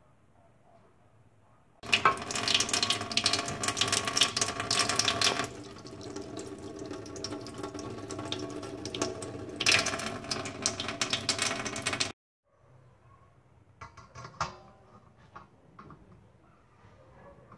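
Kitchen tap running into a stainless steel sink, the stream splashing over and into the copper tubes of a pop-pop steam engine to fill them with water. The flow is heavier at the start and again about ten seconds in, then cuts off suddenly about twelve seconds in, followed by a few light knocks.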